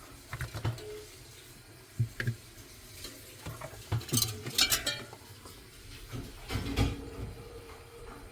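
Irregular knocks and light clattering of objects being handled. A run of scraping and rattling comes about four seconds in, and a heavier knock near the end.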